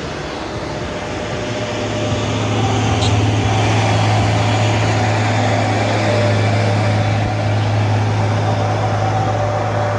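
Heavy vehicle's diesel engine labouring up a steep climb: a low, steady drone that grows louder over the first two seconds as the vehicle draws near, then holds. A sharp click sounds about three seconds in.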